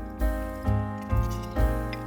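Background music: a keyboard-like melody over a deep bass, with new notes struck about every half second.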